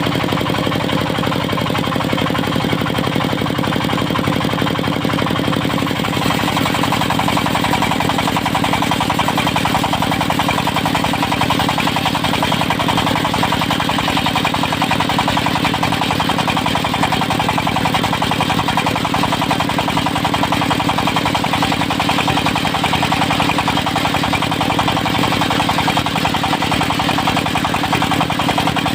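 Diesel engine of a portable circular-saw sawmill running steadily, with a rapid even knocking pulse.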